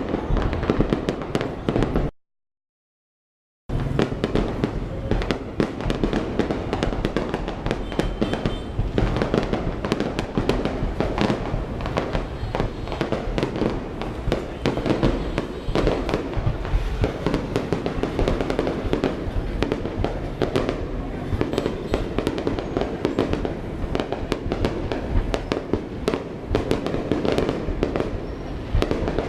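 Fireworks display: a dense, unbroken barrage of bangs and crackles from many shells bursting in quick succession. The sound drops out to dead silence for about a second and a half, about two seconds in.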